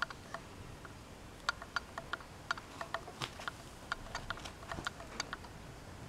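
Faint, irregular ticks and crackles, a few a second, from the brittle pages of an old pulp-paper magazine being handled and turned.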